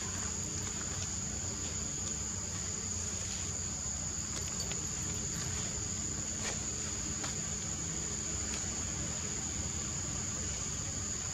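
Steady high-pitched insect drone, unbroken, over a low background rumble, with a few faint ticks.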